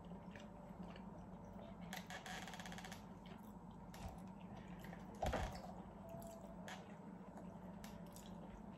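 Faint steady room hum with scattered small clicks of table-side handling. About two seconds in there is a brief rapid rattle, and a little after five seconds a single louder knock as a plastic bubble-tea cup is picked up.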